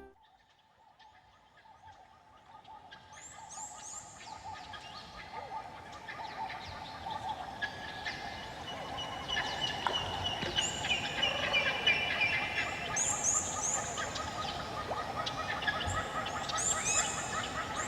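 Many birds calling and singing together, a mix of short high chirps and repeated calls, fading in from near silence over the first few seconds.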